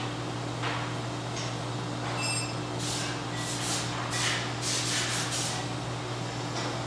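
CNC carbide saw-blade grinder running with oil-flood coolant: a steady motor hum under repeated hissing rushes of oil spraying over the grinding wheel and blade, heaviest from about three to five and a half seconds in. A brief high ring sounds a little past two seconds in.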